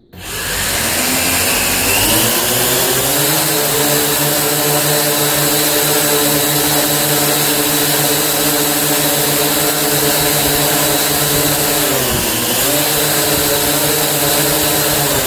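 Syma X8C quadcopter's four brushed motors and propellers spinning up to full throttle over about three seconds, then running steadily in a bench full-throttle test. Their speed dips briefly about twelve seconds in and comes back up.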